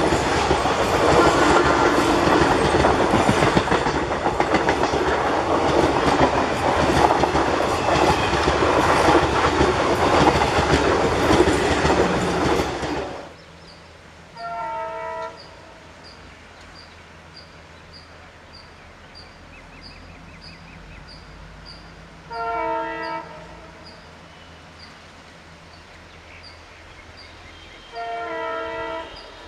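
Passenger coaches rushing past close by at speed, a loud rush with rapid wheel clatter over the rail joints, cut off abruptly after about 13 seconds. Then a distant diesel locomotive sounds its horn in three short chord-like blasts of about a second each, spread over the rest of the time, over a faint low hum.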